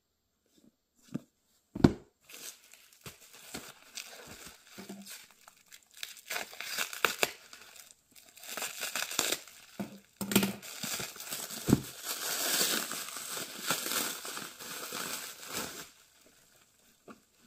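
Plastic shrink wrap being torn and crumpled off a stack of hardcover books: a long run of crinkling with louder rips. It starts about two seconds in, after a couple of knocks, and stops about a second and a half before the end.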